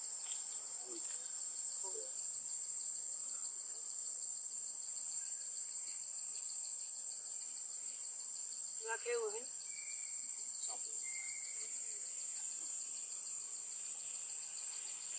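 Steady high-pitched drone of insects, with a short voice-like call about nine seconds in.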